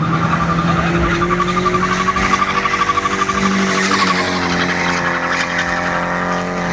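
Drift car sliding with its engine held at high, steady revs and its tyres squealing; the sound changes a little past halfway through.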